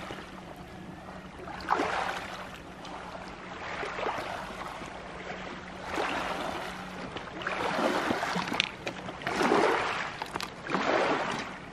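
Riverbank ambience: rushing water-and-wind noise that swells and fades every couple of seconds, with a faint steady low hum that stops about nine seconds in.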